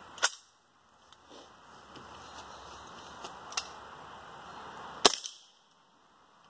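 Suppressed .22 LR shots from a dedicated short-barreled rifle with a 4.5-inch barrel and a homemade stainless mono-core suppressor, firing bulk-box ammunition that stays subsonic from the short barrel. Two sharp cracks come about a quarter second in and about five seconds in, with fainter cracks between them.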